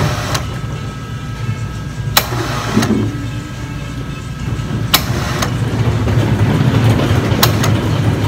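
Steady low hum of machinery, with four sharp clicks or knocks spread through it.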